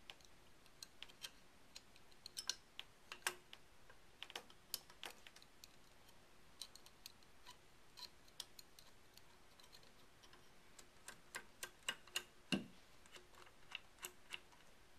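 Faint, irregular small clicks of a screwdriver working the front handguard screw out of a Remington 7600 pump-action rifle, with a few more clicks close together near the end.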